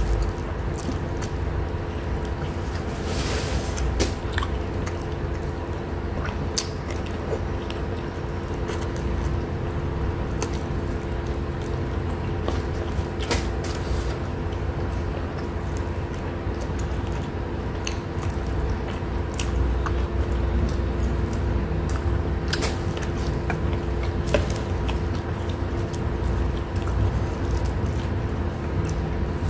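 Close-miked eating by hand: chewing and squishy mouth sounds with scattered small clicks and taps as roasted chicken and rice are handled, over a steady background hum.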